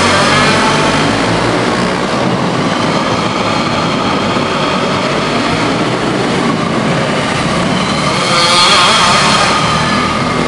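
Several racing go-kart engines running together as the karts lap an indoor dirt oval, the sound filling the arena building. The noise swells louder near the end as karts pass close by.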